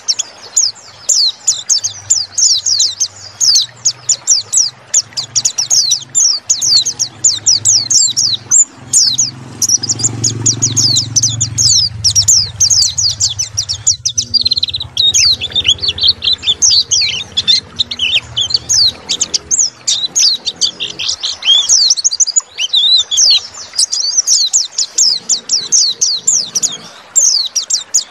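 White-eye (pleci) singing a fast, unbroken stream of short, high chirps, many each second. This is the full rapid song used as lure song to get a quiet white-eye to start singing.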